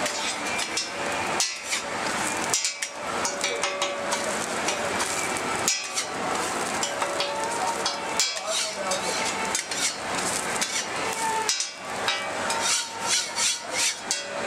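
Egg and burger patty sizzling on a flat-top griddle while a metal spatula scrapes and clacks on the hot plate, with quick runs of taps near the end.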